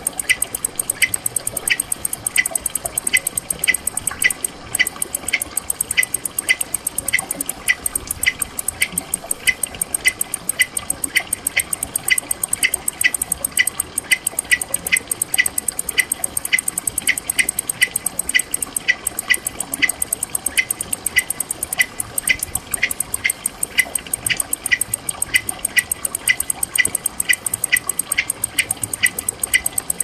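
Meadow insects chirping: a constant high-pitched buzz with a short, evenly repeated chirp about twice a second.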